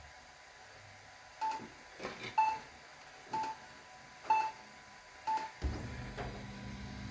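Short keypad-style beeps from the 40 W CNC laser engraver's control panel as its buttons are pressed: five beeps about a second apart, with a few faint clicks between them. About two thirds of the way through, a low steady hum starts up and keeps running.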